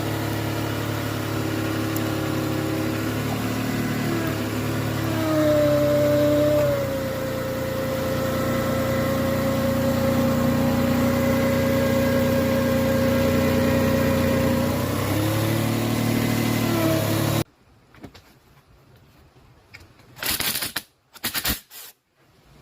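1997 Toyota Avalon's engine idling steadily, with a brief rise in pitch and level about five seconds in. The sound cuts off suddenly about seventeen seconds in, followed by a few short noises.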